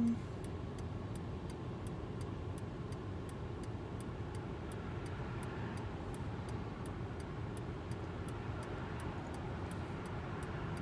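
Car engine idling, heard from inside the cabin, with the indicator flasher ticking steadily about three times a second.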